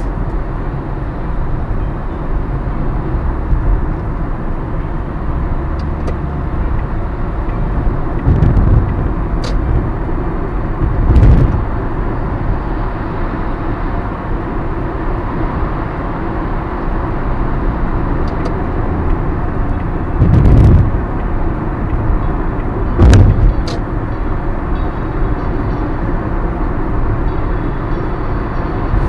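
Road and engine noise inside a moving car's cabin: a steady low rumble, broken by four short, louder thumps spread through it.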